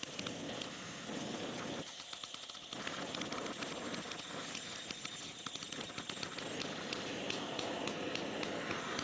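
Oxy-fuel torch flame hissing steadily into a crucible of thin copper transformer windings, with many small crackles and pops, more of them in the second half, as the glue on the windings burns off.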